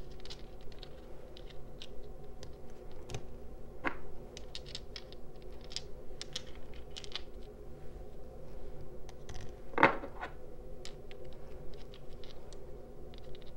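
Small crystal stones being handled, clicking and scratching against each other and a surface in many light taps, with a louder knock about 4 seconds in and another near 10 seconds. A faint steady hum runs underneath.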